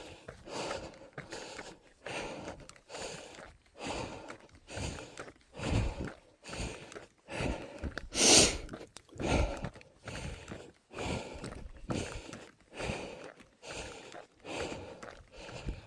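A person breathing hard while running uphill: heavy, rhythmic breaths about one and a half a second, with one much louder burst about halfway.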